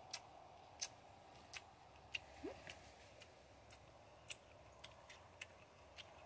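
Faint crisp crunches of raw shredded carrot slaw being chewed: sharp, irregular, a bit under two a second.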